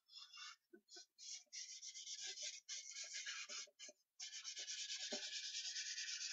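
Charcoal scratching and rubbing across newsprint on an easel board. A few short strokes come first, then from about one and a half seconds in long, fast back-and-forth scribbling as an area is shaded in, broken briefly around the four-second mark.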